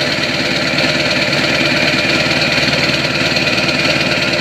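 Ford 7.3-litre Powerstroke V8 turbo-diesel idling cold after a cold start, heard at the tailpipe of its 4-inch turbo-back MBRP exhaust. It runs steadily with a loping idle.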